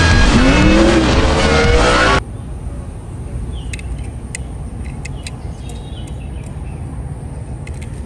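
Race-scene film soundtrack: stock-car engines racing past, their pitch rising and falling, over music. It cuts off abruptly about two seconds in to a quiet outdoor background with a few faint clicks.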